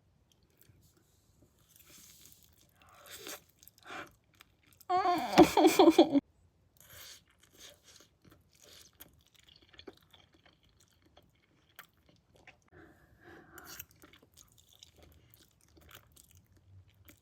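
Close-miked chewing and mouth noises of a person eating spicy instant noodles: soft wet smacks and small clicks. About five seconds in comes a loud, pitched burst of voice lasting just over a second.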